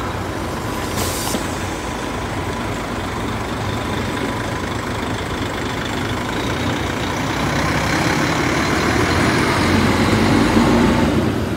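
Sleeper coach bus's diesel engine running as it pulls away and drives off, with a brief air hiss about a second in. The engine rumble grows louder near the end.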